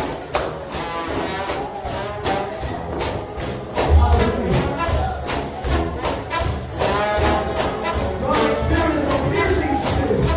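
Brass shout band music with tambourines shaken and struck on a fast, driving beat, about four strokes a second.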